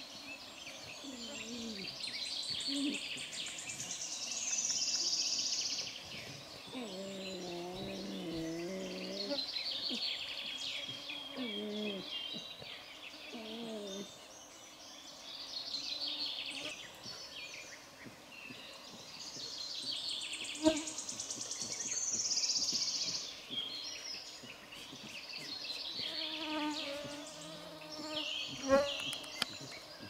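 A songbird singing the same high trilled phrase over and over, each ending in a falling flourish, with a few lower wavering calls between them and two sharp snaps in the second half.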